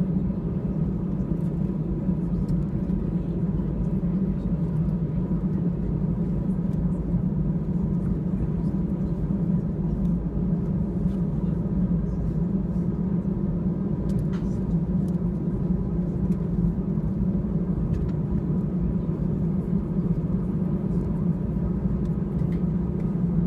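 Airbus A320 cabin noise during taxi: the engines at low taxi power give a steady low hum with a few steady tones over it, unchanging throughout.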